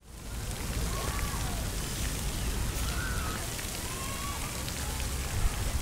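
Outdoor park ambience fading in: wind rumbling on the camera microphone over a steady hiss, with a few faint bird chirps now and then.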